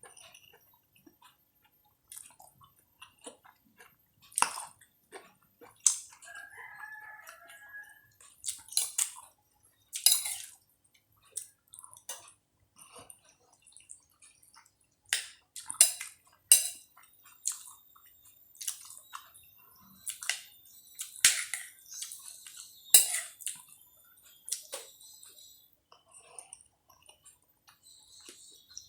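A person eating vegetable soup and spicy soy-sauce chicken feet: irregular chewing and mouth sounds with sharp clicks and smacks, separated by short pauses.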